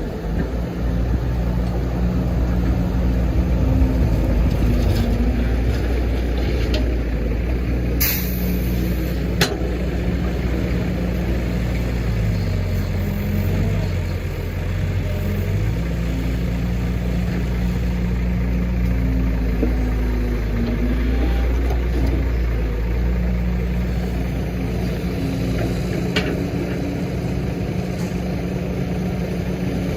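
Excavator's diesel engine running steadily under hydraulic load, its pitch dipping and shifting for a few seconds midway. A few sharp metallic knocks sound, two close together about a third of the way in and one more near the end.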